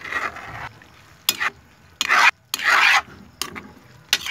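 A metal spoon stirring and scraping vegetables around a frying pan, in about six short strokes with a few sharp clinks of metal on the pan.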